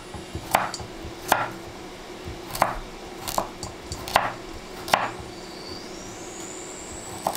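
Chef's knife dicing a carrot on a wooden cutting board: seven sharp single chops, about one a second, with a pause of about two seconds before the last chop near the end.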